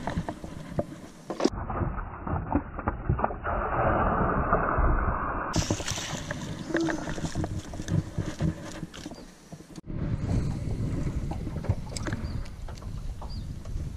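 Water splashing beside a small jon boat as a bass is netted, with scattered knocks of the net handle and gear against the hull.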